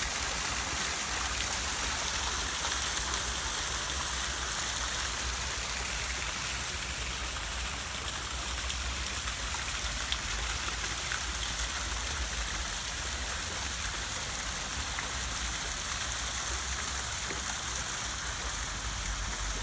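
Small rock cascade splashing steadily into a garden pond: an even hiss of falling water, with a low rumble underneath.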